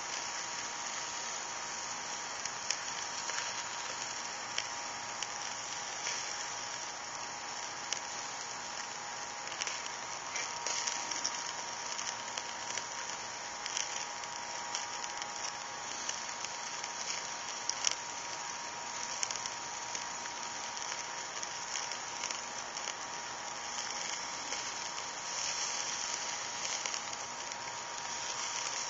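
Iguana meat sizzling over hot charcoal on a barbecue grill: a steady hiss with scattered crackles and pops from the juices and fat dripping onto the coals.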